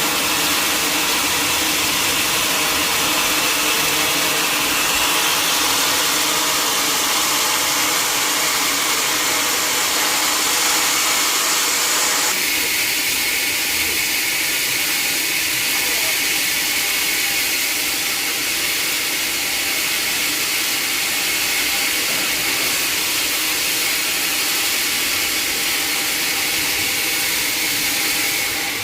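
Sawmill machinery running steadily, a loud, even, noisy hiss without pauses. About twelve seconds in, the sound changes abruptly, losing its brightest high part.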